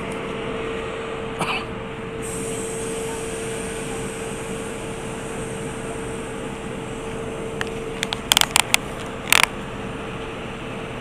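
Railway platform beside standing passenger carriages: a steady rush of noise with a steady hum that fades about eight and a half seconds in. A quick run of sharp clicks comes about eight seconds in, and another about nine seconds in.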